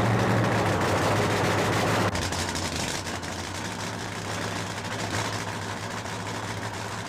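Funny car drag-racing engine noise, a dense rough noise with a steady low hum. It drops abruptly about two seconds in and carries on at a lower level.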